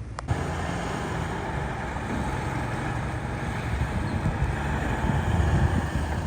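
Steady motor-vehicle road noise, a low rumble with a hiss, that begins just after a short sharp click and swells slightly near the end.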